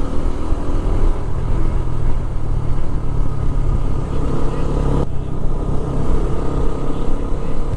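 Motorcycle engine running at road speed, with a steady low rumble of wind noise on the microphone.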